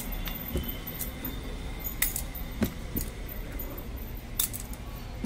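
Glass bangles clinking and a wooden rolling pin tapping as spinach paratha dough is pressed and rolled out by hand. Scattered sharp clinks, the loudest about two seconds in and again near the end, mix with a few soft taps.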